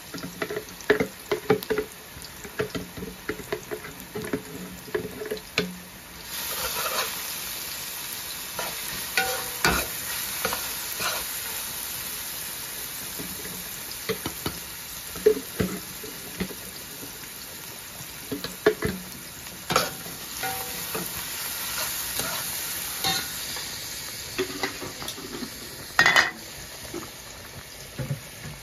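Sliced onions and garlic frying in oil in an aluminium pot, sizzling, while being stirred, with short scrapes and knocks against the metal. The sizzle grows louder about six seconds in.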